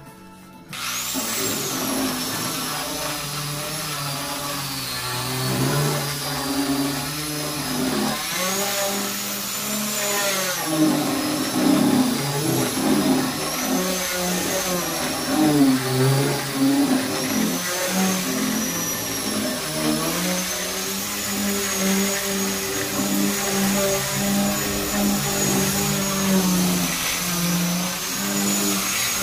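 Angle grinder fitted with a sanding disc, running as it sands the flat top of a teak cabinet. It starts suddenly about a second in, and its high whine rises and dips as the disc is pressed onto the wood and moved across it.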